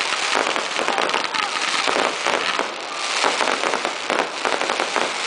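Fireworks crackling overhead: a dense run of rapid small pops and crackles, coming in several thick waves.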